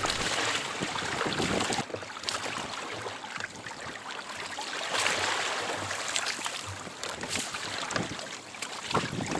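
Water sloshing against a kayak's hull on a choppy sea, with wind buffeting the microphone and a few short clicks.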